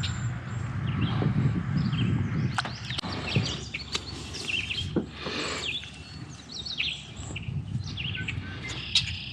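Birds chirping and calling outdoors, many short chirps throughout. A low rumble underlies the first few seconds, with a few sharp knocks scattered through.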